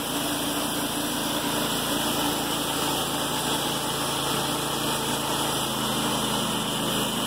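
Wood-Mizer LT35 portable band sawmill's engine running steadily, its tone shifting slightly about six seconds in.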